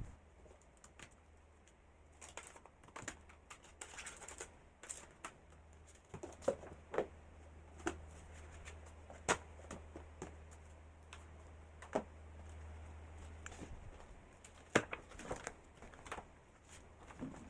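Scattered light clicks and taps, irregular and a second or so apart, over a low steady hum.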